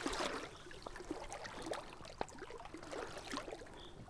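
Water sloshing and splashing in irregular small bursts as a person wades through a shallow river, with a sharp click about two seconds in.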